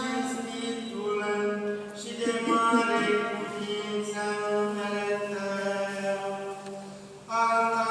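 Orthodox liturgical chant sung during the Divine Liturgy: long held notes that step from one pitch to the next every second or so.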